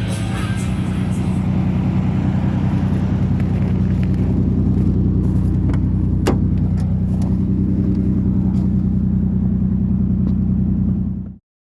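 High-mileage Toyota engine running steadily with a fast, even pulse, one sharp tick about six seconds in. The sound cuts off abruptly near the end.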